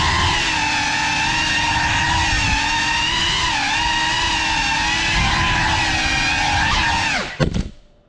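Ducted propellers and motors of a GEPRC Cinelog35 3.5-inch cinewhoop on 6S, whining loud at a pitch that wavers with the throttle. About seven seconds in the drone crashes: the whine drops sharply in pitch with a couple of knocks, and the motors stop.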